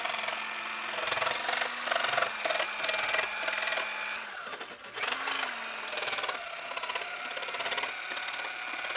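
Bosch JS470E corded jigsaw cutting through a plastic milk crate: a steady motor whine with the blade rattling against the plastic. It stops about four seconds in, then spins up again about a second later and keeps cutting.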